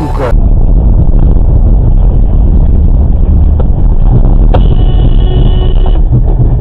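Loud, steady low rumble of a car driving, picked up inside the car by a dashcam. A click comes just past the middle, followed by a steady high-pitched tone lasting about a second and a half.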